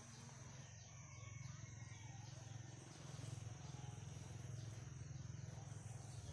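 Faint outdoor ambience: a steady low hum that grows a little louder about three seconds in, under a thin, steady high whine.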